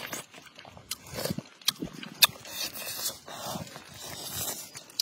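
Close-up mouth sounds of a person eating fish: chewing and lip smacking, with several sharp clicks.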